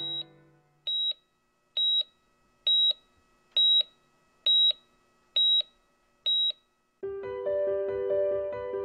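Heart-rate monitor beeping: about eight short, high beeps evenly spaced a little under a second apart, like a pulse. Near the end, piano-led music with a steady beat comes in.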